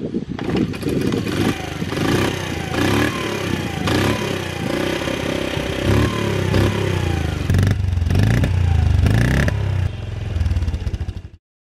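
Honda ZB50's small four-stroke single-cylinder engine kick-started and catching straight away, then running and revved up and down several times in short blips. The sound cuts off suddenly near the end.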